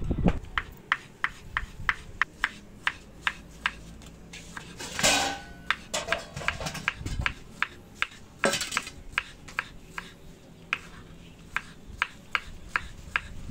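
A kitchen knife slicing a cucumber on a wooden chopping board: a steady run of sharp taps, about three a second, as the blade hits the board with each slice. Two brief, longer rustling noises break in about five and eight and a half seconds in.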